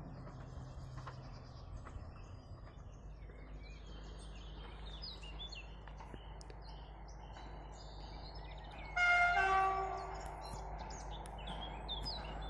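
Distant approaching railcar sounding one short two-note horn blast about nine seconds in, lasting about a second. Under it is a faint, steady low rumble of the train, with birds chirping.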